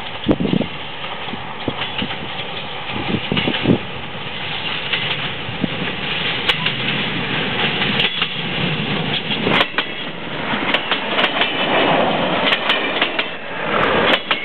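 SNCF X2200 diesel railcar with coaches passing by, its diesel engine running under the steady rumble of the train. The wheels click over rail joints, more often in the second half.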